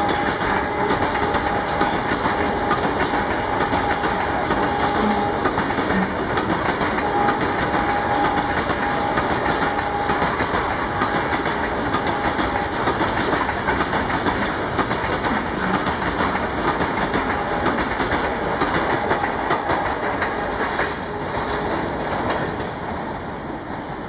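A freight train of BCNA covered wagons rolling past close by, its wheels clattering steadily over the rail joints, with a faint high tone that comes and goes. The noise falls away in the last few seconds as the end of the train passes and recedes.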